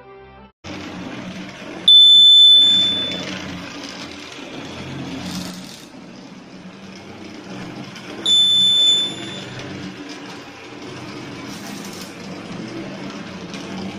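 Piezo buzzer of an Arduino model level crossing beeping twice, each a high steady tone about a second long: the crossing warning as the train reaches a sensor. Under it, the steady rattling whir of a model train running on its track.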